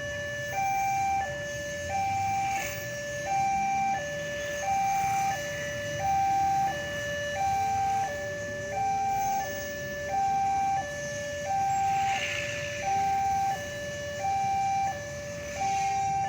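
Railway level-crossing warning alarm sounding a steady electronic two-tone hi-lo, switching between a higher and a lower tone about every 0.7 s. A fainter, lower two-tone alarm joins about halfway through.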